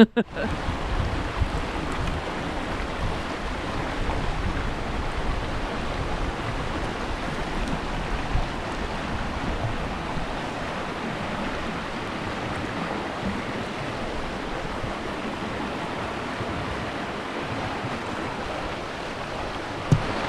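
Steady rushing of a creek's flowing water, with some low wind rumble on the microphone in the first half.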